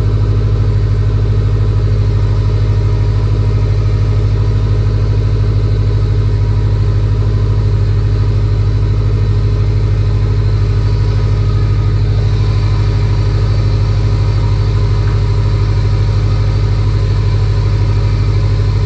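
Freshly rebuilt Subaru EJ257 turbocharged flat-four running at a steady idle. The owner suspects a vacuum leak somewhere from how it sounds.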